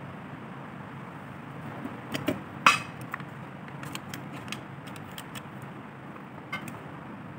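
Palette knife clicking and tapping against an inking slab while printing ink is mixed: a few sharp clicks, the loudest about two and a half seconds in, over a steady background hiss.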